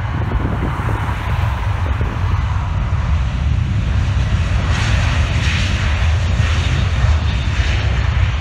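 Jet airliner engine noise as a plane passes, growing louder and hissier about five seconds in, over a steady low rumble.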